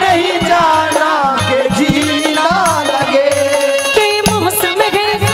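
Live Haryanvi ragini music: a bending melody line over a steady drum rhythm, with rattling percussion on top.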